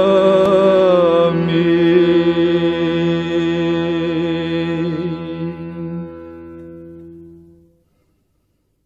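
Sufi devotional chanting, a long held vocal note over a steady drone, sliding down in pitch about a second in, then fading away to silence by about eight seconds.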